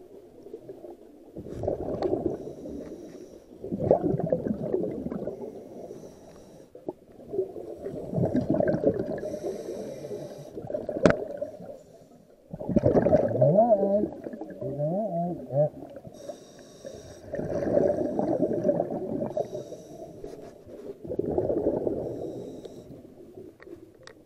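Scuba diver breathing through a regulator underwater: a brief hiss on each inhale, then a long bubbling rush of exhaled air. This repeats about every four seconds.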